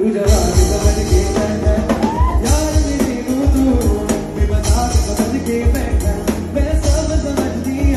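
Live band music: a male singer over acoustic guitar, with a drum kit keeping a steady beat of kick drum and cymbals.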